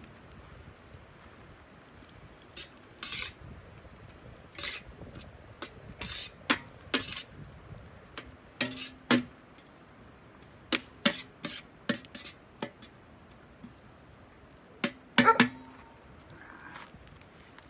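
Metal utensil scraping and clinking against a steel paella pan while stirring, in irregular strokes, with the loudest cluster of clinks near the end.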